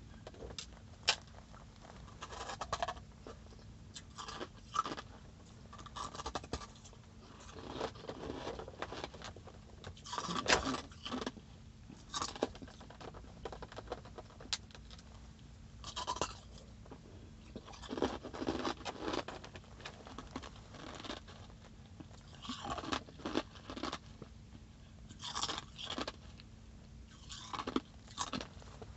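Ice being chewed close to the microphone: sharp crunches in irregular clusters every second or two, over a faint steady low hum.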